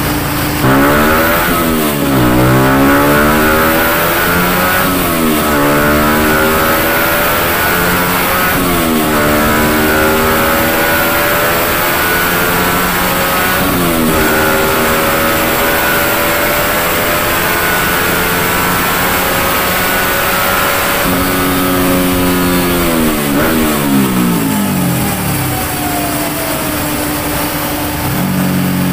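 Yamaha Y15ZR's 150 cc single-cylinder four-stroke engine with an aftermarket Uma Racing exhaust, run up through the gears on a chassis dyno. The revs climb and drop sharply at each of about four upshifts, hold high, then fall away to idle near the end.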